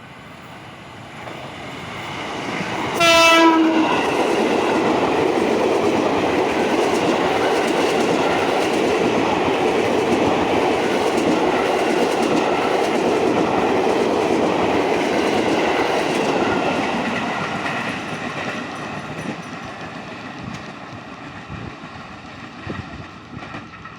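Passing train's horn giving one short blast about three seconds in, a driver's greeting to railfans. The train's wheels rumble and clatter on the rails, loud and steady for some fifteen seconds, then fade away.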